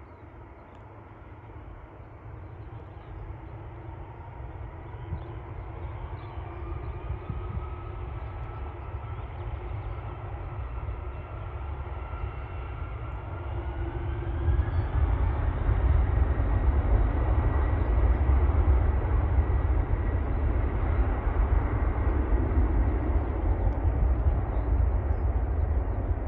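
Boeing 747-400 freighter's four turbofan engines spooling up to takeoff thrust: a whine rising in pitch over about ten seconds as the rumble grows steadily louder. From about fifteen seconds in it holds a steady, loud rumble at takeoff power.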